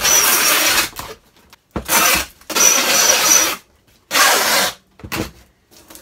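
Packing tape pulled off a handheld tape gun across a cardboard box: four loud rasping strips, each lasting under a second and carrying a faint high squeal, then a short one. Near the end the tape is rubbed down by hand.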